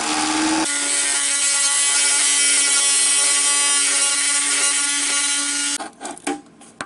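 Oscillating multi-tool running with its blade in the drain opening of a stainless steel sink, a steady loud buzz that changes note slightly under a second in as it cuts. The tool stops about six seconds in, leaving a few scrapes and clicks.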